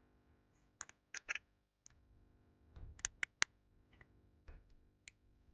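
Sharp small clicks and taps of watchmaker's metal tools on watch movement parts, a pair about a second in and three in quick succession about three seconds in.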